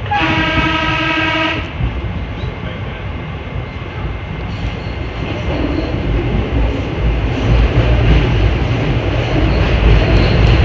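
PATCO rapid-transit train running through a tunnel. A horn sounds once, one steady tone lasting about a second and a half at the start. Then the low rumble of the wheels on the rails grows louder toward the end.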